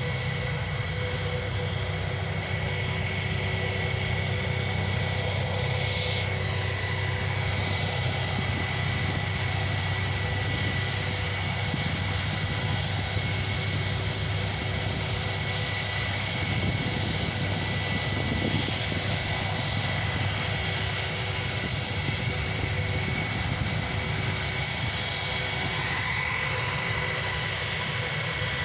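Aircraft engines running steadily: a low drone under a high, even whine that holds its pitch and loudness throughout.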